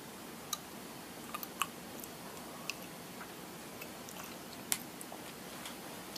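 A person chewing close to the microphone: scattered small, wet mouth clicks over a faint steady hiss.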